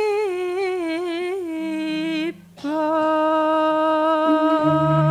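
A single voice singing a slow Javanese vocal line with heavy vibrato, pausing briefly about halfway and then holding one long note. Low sustained instrument notes sound beneath it from about the middle, louder near the end, as in gamelan accompaniment for kethoprak.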